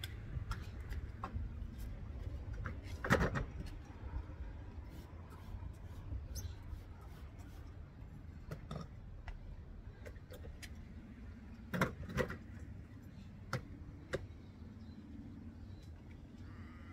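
Scattered knocks and clicks from an aluminium stepladder being stepped on and window-cleaning gear being handled, over a steady low outdoor rumble. The loudest knocks come about three seconds in and about twelve seconds in.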